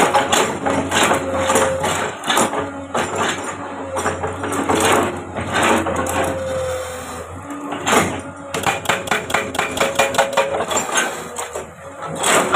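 Komatsu excavator working rock: the engine and hydraulics run under a steady hum while the attachment knocks, scrapes and clatters against rock. About eight seconds in there is a fast run of sharp knocks.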